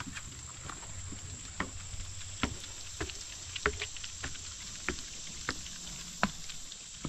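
Footsteps of dogs and people on wooden stair treads and footbridge boards: irregular hollow knocks and taps, a few sharper ones among them.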